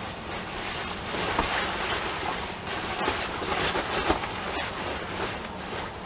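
Taffeta underskirt rustling and swishing in uneven surges as it is tied and smoothed by hand.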